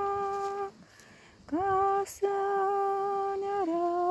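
A woman singing unaccompanied in slow, long held notes, with a short breath pause about a second in. The second note steps down in pitch near the end.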